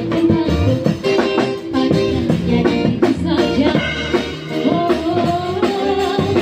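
Live street-band music: a woman singing a melody through a microphone and small amplifier, backed by acoustic guitar and drum kit, with a long held note near the end.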